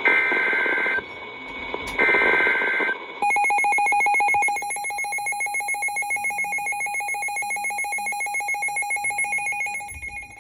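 Emergency Alert System SAME header: two one-second bursts of screechy two-tone digital data about a second apart. These are followed by a rapidly pulsing electronic alert tone, about ten beeps a second, lasting about seven seconds, which signals the start of a warning.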